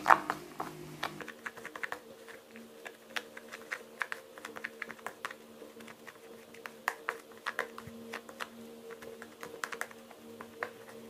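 Irregular light clicking and tapping of a straw pressing and mashing grated bar soap wetted with hydrogen peroxide into a paste in a small container.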